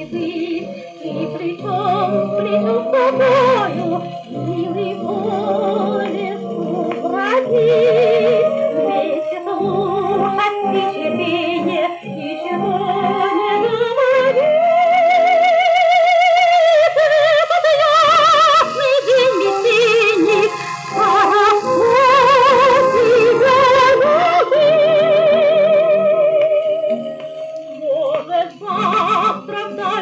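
A woman singing a waltz in a trained, operatic style with a jazz orchestra, played from a 1940 78 rpm shellac record. Her long held notes waver with vibrato and are loudest in the middle.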